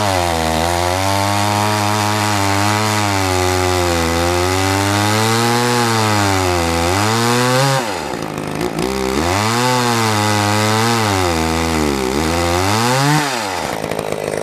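Homelite 360 chainsaw cutting hard hickory at full throttle, its engine pitch sagging under load and recovering as the chain bites. About eight seconds in it drops off briefly, then cuts again; near the end it revs up and falls back toward idle. The saw runs cleanly on its new intake boot.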